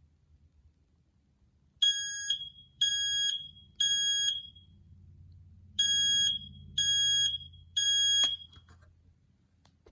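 Family Guard FG200 battery smoke alarm's piezo horn sounding on test: two rounds of three loud, high-pitched beeps, the temporal-three fire alarm pattern, each beep about half a second long, starting about two seconds in.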